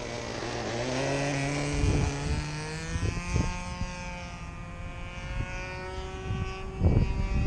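Evolution 60 two-stroke glow engine on an RC model airplane running at high throttle. Its note rises in pitch about a second in as the plane powers off the runway and climbs away, then slowly drops. A few low wind thumps hit the microphone. The pilot thinks the engine is still running a little rich.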